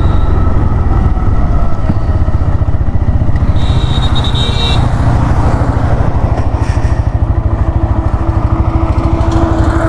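TVS Raider 125's single-cylinder four-stroke engine, heard from the rider's seat, as the bike rolls to a stop and then idles in neutral with an even, rapid beat. A brief tone sounds for about a second, around four seconds in.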